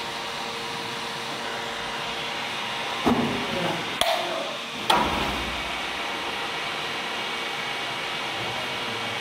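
Cleated belt conveyor running with a steady mechanical hum. About three seconds in come three sharp knocks roughly a second apart, each with a short ringing tail; these are the loudest sounds.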